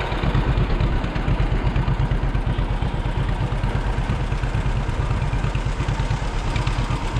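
An engine running steadily close by, with a fast, even low throb.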